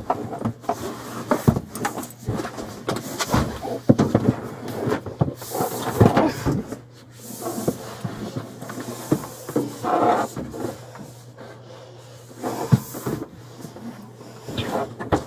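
Irregular knocks, bumps and rustling as a person shifts about on the moulded rear seat of a police patrol car, over the car's steady low hum.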